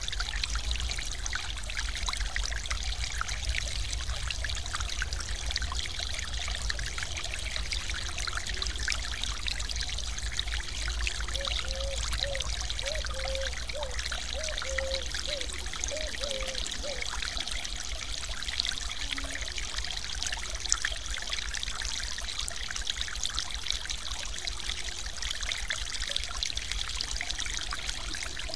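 Water of a mountain stream pouring steadily over a small waterfall, an even rushing splash with a low rumble underneath.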